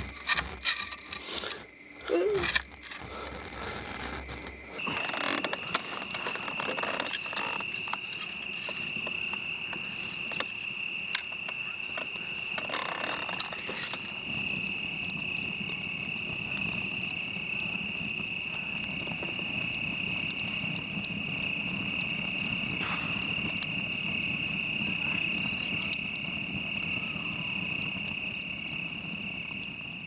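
Steady high-pitched insect trill held without a break, with a few sharp clicks and knocks in the first three seconds.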